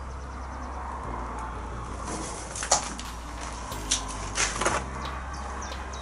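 A few sharp knocks and scrapes, one near the middle and a short cluster a second or so later, as someone moving through the clutter brushes against corrugated sheet metal and debris. Underneath is a steady low rumble.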